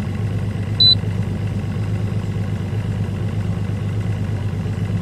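Bass boat's outboard motor idling with a steady low hum. About a second in, one short, high electronic beep from the Lowrance HDS display as a button is pressed.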